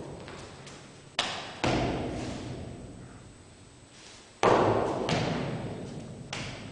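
Foot stamps of a Baji quan form on a hard floor: about five sharp thuds that echo in a large bare hall, the loudest about four and a half seconds in.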